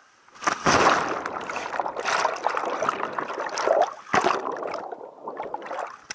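Waterfall water pouring and crashing straight over the camera: a loud, rough rush that starts about half a second in, drops out briefly about four seconds in and again a second later, then trails off near the end.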